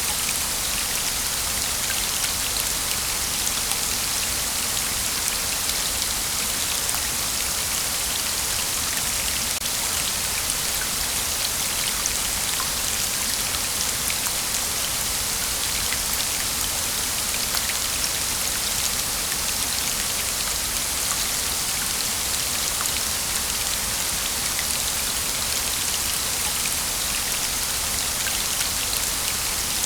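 Waterfall: water falling steadily with a bright, hissing splash and a fine patter of drops, unchanging throughout.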